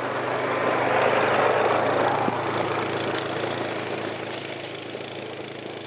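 Yamaha Grizzly 700 ATV's single-cylinder engine running steadily at low revs, slowly fading toward the end.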